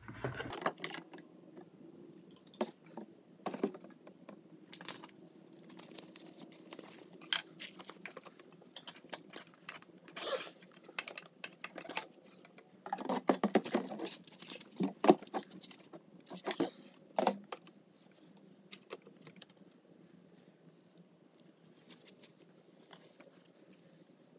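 Scattered clicks, taps and rustles of hands working the fuel line off a lawn mower carburetor and handling a gas can, busiest in the middle and sparser over the last several seconds.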